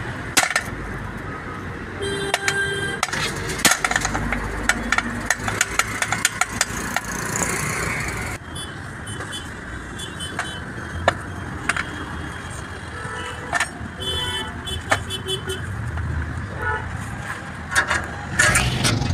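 Scattered metallic clinks and knocks as a truck propeller shaft and hand tools are handled, over steady road-traffic noise with a few short horn toots.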